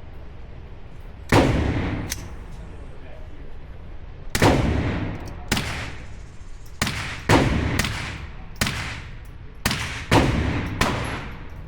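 Gunfire at a shooting range: about nine single shots at uneven intervals, the first about a second in and several in quick pairs, some loud and some fainter. Each shot has a long echoing tail.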